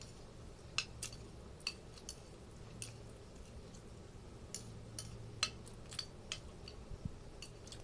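Metal spoon clicking and scraping on a plate during a meal, with chewing: scattered sharp clicks, the loudest about a second in and about five and a half seconds in.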